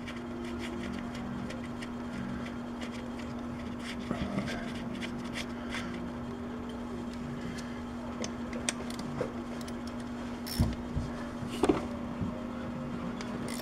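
Quarter-inch-drive ratchet clicking in short runs as 8 mm valve cover bolts are loosened, over a steady low hum, with a couple of knocks near the end.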